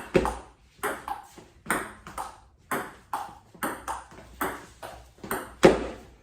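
Table tennis rally: the celluloid ball clicking off paddles and the table in a quick, even run of sharp taps, a little over two a second, one hit near the end louder than the rest.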